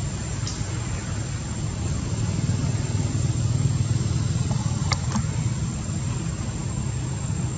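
A steady low rumble with a constant thin, high-pitched whine over it, and a couple of short clicks, one about half a second in and another about five seconds in.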